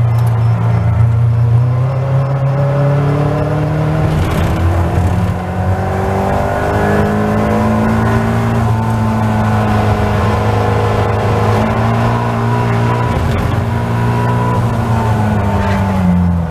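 Caterham Seven race car engine heard from the cockpit, accelerating hard out of a slow corner and pulling through the gears, with a brief dip at a gear change about five seconds in. It holds high revs along the straight, then the revs fall as the driver lifts off near the end.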